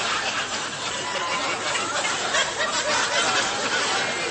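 Live studio audience laughing at a joke, a sustained wash of many voices.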